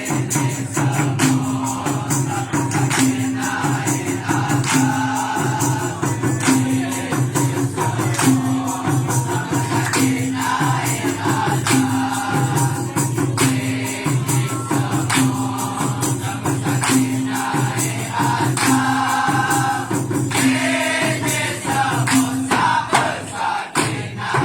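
Dikir barat ensemble: hand drums, shakers and other percussion keeping a steady beat of about one stroke a second, with a group of voices chanting along.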